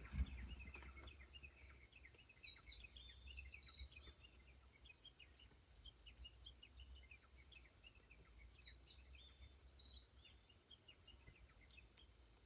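Small songbirds chirping and twittering, faint, with one bird twice singing a high phrase of notes that step downward, about six seconds apart. A low steady rumble and a bump right at the start lie under it.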